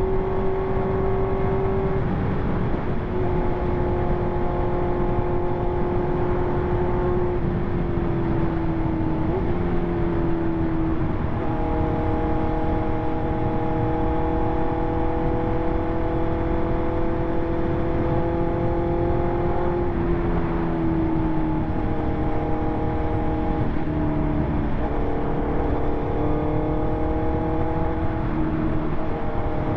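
2020 Honda CB650R's inline-four engine running through an aftermarket SC Project exhaust while the bike is ridden at a steady cruise. The engine note climbs slowly and drops back a few times, about two, ten, twenty and twenty-five seconds in, over a steady rush of wind and road noise.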